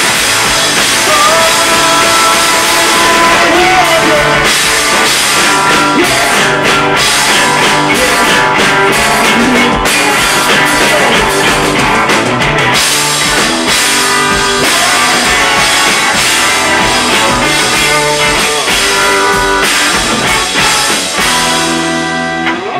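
Live rock band playing loudly: drum kit and several electric guitars. The sound thins out and drops slightly near the end.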